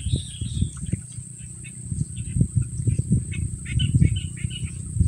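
Outdoor ambience of small birds chirping in short calls over a steady high insect drone, with irregular low rumbling thumps underneath that are louder at the start and near the end.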